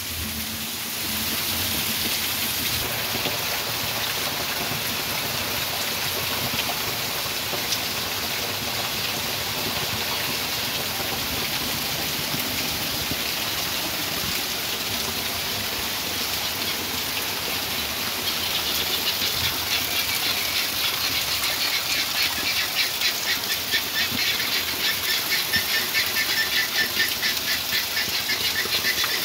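Heavy rain pouring down steadily onto muddy, puddled ground and trees, a dense even hiss. About two-thirds of the way in, a fast, high-pitched rhythmic pulsing of many beats a second joins the rain.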